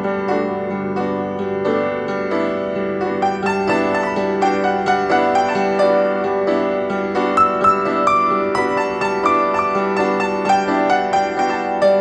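Background music: a piano playing a steady run of notes, busier from about three seconds in.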